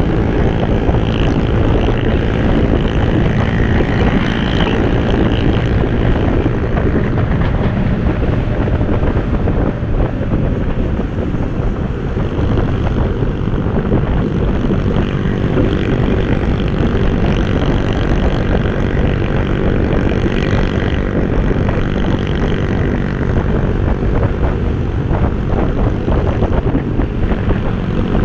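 Motorbike engine running steadily at cruising speed, heard from a moving motorbike on the road.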